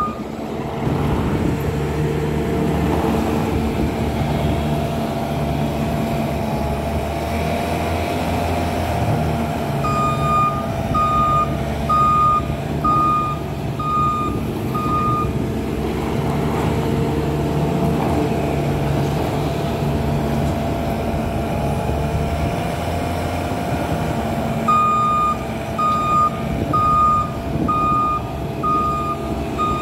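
Bobcat S550 skid steer's diesel engine running steadily at working speed, with its reversing alarm beeping about once a second in two runs of several beeps, one about a third of the way in and one near the end, as the machine backs up.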